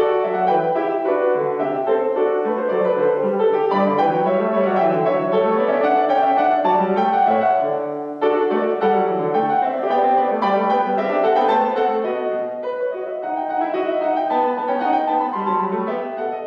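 Classical piano music with a steady flow of quick notes, breaking off for an instant about eight seconds in and growing softer toward the end.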